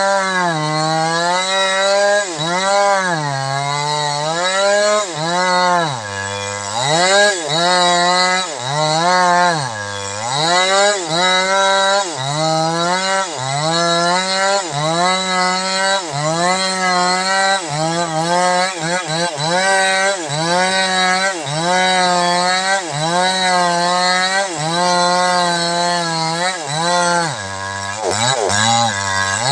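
New West 628 two-stroke petrol chainsaw cutting into a jengkol tree trunk, its engine speed rising and falling over and over as the chain works through the wood.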